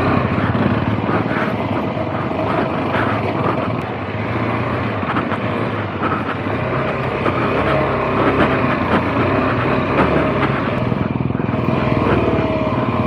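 Motorcycle engine running loud and revving, its pitch rising and falling as the bike is worked over rough trail ground.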